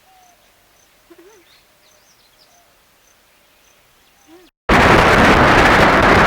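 Faint calls and a high chirp repeating about twice a second over a quiet background. About four and a half seconds in, a brief dropout, then a sudden loud rushing of wind on the microphone.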